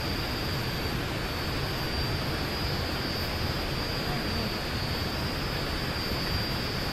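Steady outdoor rushing noise with a steady high-pitched whine above it, unchanging throughout.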